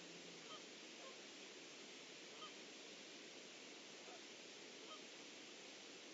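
A few faint, short bird calls spaced a second or more apart, over a steady low hiss.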